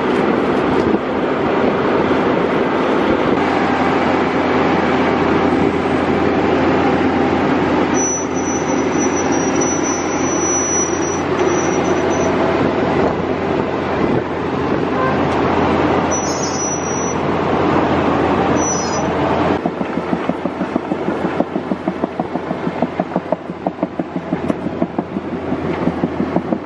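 Tile plow at work: the machine's engine running under load while its plow shank and boot drag through the soil laying drain tile, a steady clattering rumble. A thin high whine comes in for a few seconds near the middle, and in the last several seconds the rumble turns into a fast rhythmic pulsing.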